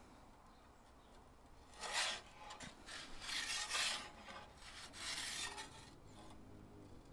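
Perforated metal pizza peel scraping across the stone baking floor of an Ooni Koda 16 oven as it slides under the pizza to turn it. There are a few short scrapes, the longest about three to four seconds in.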